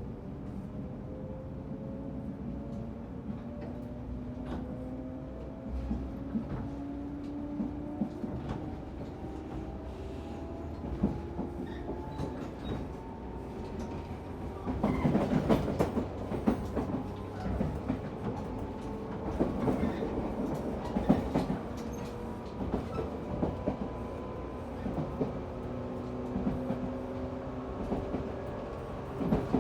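JR 113 series electric train running, heard from the motor car MoHa 113-2015: the traction motor and gear whine climbs slowly in pitch as the train gathers speed, then holds steady. Rail-joint clatter from the wheels grows louder about halfway through.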